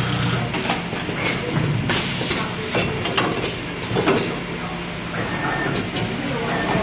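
Automatic pocket-setting machine's pneumatic folding and clamping mechanism working: a series of sharp clacks and knocks, with a burst of compressed-air hiss about two seconds in.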